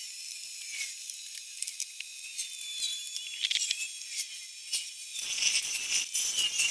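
Laguna Revo 24/36 wood lathe starting up with a large rough wooden blank mounted: a faint high hiss with thin whistling tones, then a louder rushing noise from about five seconds in as the blank spins up.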